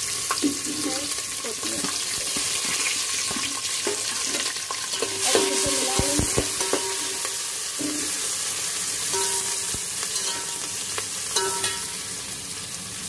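Chopped onion, green chillies and peanuts sizzling in hot oil in an aluminium pot, stirred with a metal spoon that scrapes and clinks against the pot's side.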